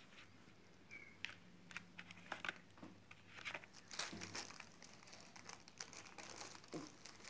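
Faint clicking and plastic rustling from oil pastel sticks being handled in their clear plastic tray case, loudest about four seconds in.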